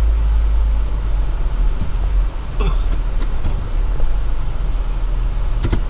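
Four-wheel-drive vehicle crawling along a rough dirt trail: a steady low rumble of engine and drivetrain, with a few sharp clicks and scrapes scattered through it and a cluster of them near the end.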